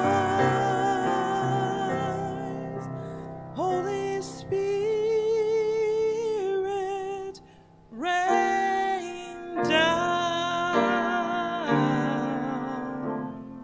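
A woman singing a slow hymn solo with vibrato on long held notes over piano chords. There is a brief break just past the middle, then she comes back in with a scooping rise in pitch, and the final phrase fades away near the end.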